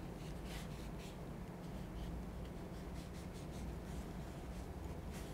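Faint, scattered rubbing and scratching strokes from a shotgun's gas-system bushing being scrubbed clean by hand, over a steady low hum.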